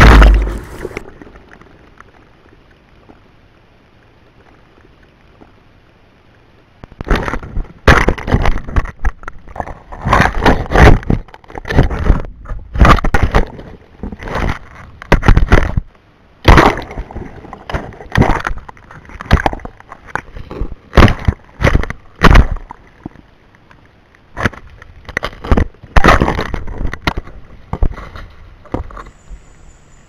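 A camera knocking and scraping against the earth walls and branches of a well shaft as it is lowered down the well on a line. There is a thump at the very start, about six seconds of quiet, then from about seven seconds a long run of loud, irregular rubbing and knocking bursts with short pauses.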